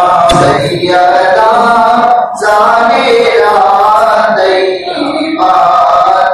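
A voice singing a devotional Urdu salaam (manqabat) to Fatima Zahra, in long, ornamented held phrases with short pauses between lines.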